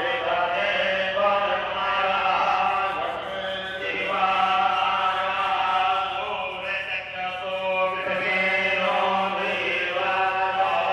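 Sanskrit puja mantras chanted in a sustained, sing-song recitation with long held notes.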